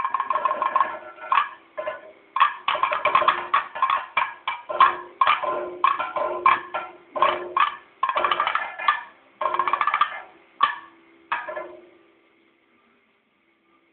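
Kathakali percussion accompaniment: rapid, irregular drum strokes over a steady ringing metallic tone. It stops suddenly about twelve seconds in.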